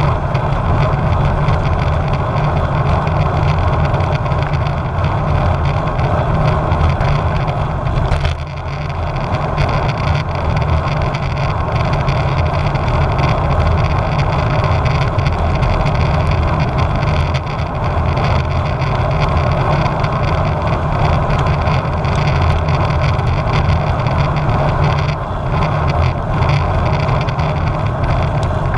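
Wind rushing over a bike-mounted GoPro's microphone while the road bike is ridden at speed: a loud, steady rush, heaviest in the low end, with a brief dip about eight seconds in.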